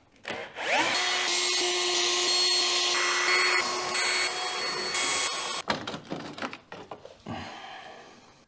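Cordless drill spinning up with a rising whine and running steadily for about five seconds as it backs out the screws holding a car's plastic front wheel-arch liner. After it stops, a few clicks and rattles of plastic parts being handled.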